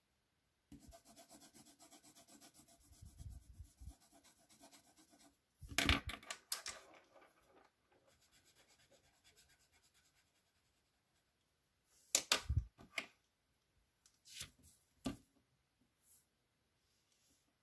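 Pen and felt-tip marker nibs scribbling rapidly back and forth on paper as areas of a drawing are shaded in. Sharp clicks and clatters of pens and markers being set down and picked up, loudest about six seconds in and again about twelve seconds in.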